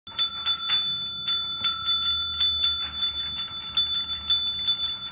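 Counter service bell rung again and again by a dog's paw, a fast irregular run of dings, about four or five a second, each ring still sounding when the next strike comes.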